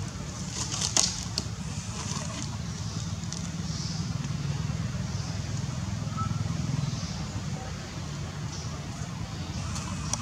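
Outdoor ambience: a steady low rumble with a high hiss that swells and fades every second or so, and a few sharp clicks about a second in.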